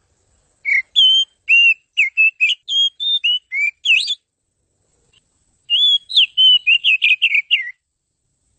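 Oriental magpie-robin (kacer) singing: two phrases of quick, varied whistled notes, a longer one and then, after a short pause, a shorter one.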